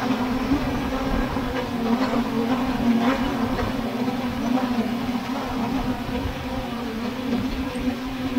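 Multirotor drone's motors and propellers humming steadily, a constant buzzing drone note over a hiss of noise.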